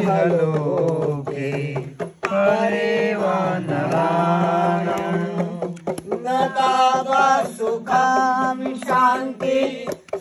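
Men chanting Sanskrit mantras in a steady, sing-song recitation, with held notes on the syllables.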